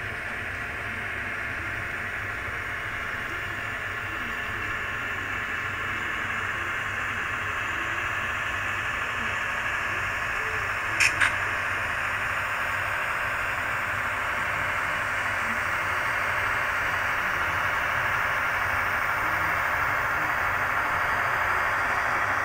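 Model train rolling along the track toward the microphone: a steady hissing running noise of wheels and motors that slowly grows louder, with a quick pair of clicks about halfway through as wheels cross a rail joint.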